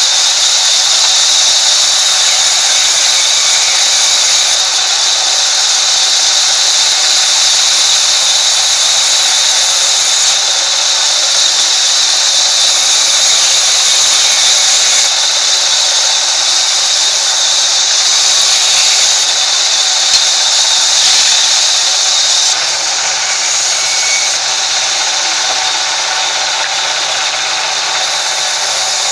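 Sawmill band saw ripping a wooden plank lengthwise as it is fed through the blade: a loud, steady, high-pitched rushing noise that drops a little in level about two-thirds of the way in.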